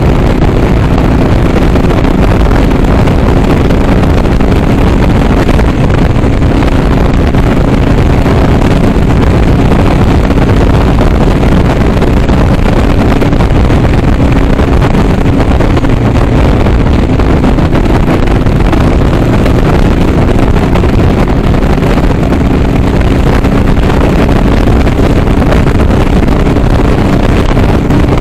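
Harley-Davidson Sportster Iron 883's air-cooled V-twin running at a steady highway cruise, heard from the saddle, with heavy wind rushing over the microphone.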